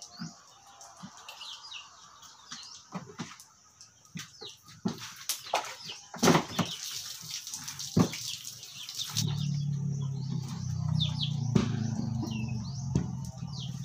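Small birds chirping with short falling chirps, over scattered knocks and slaps as a carcass is handled on a wooden table. A brief hiss comes in the middle, and about nine seconds in a steady low motor hum starts and carries on.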